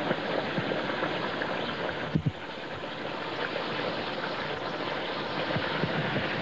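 A large aluminium stockpot of water at a rolling boil, a steady bubbling rush, as sausages slide in from a plate. A brief low thump about two seconds in.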